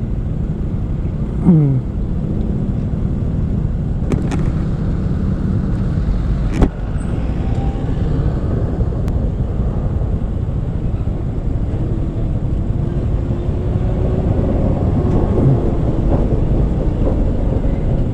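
Motorcycle riding in traffic: steady engine and road noise picked up by a helmet-mounted camera mic, with one sharp click about six and a half seconds in.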